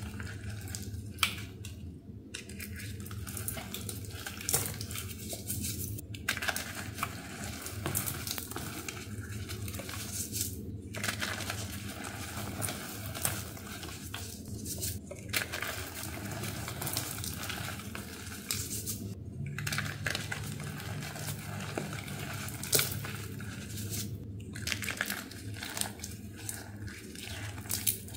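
Crunchy, powdery reformed chunks made with fizzy water being crushed: a run of irregular crunches and crumbling, with a low steady hum underneath.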